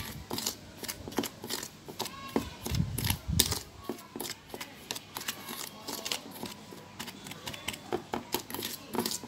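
Plastic measuring spoon stirring dry flour and salt in a stainless steel bowl, with irregular clicks and scrapes of the spoon against the metal.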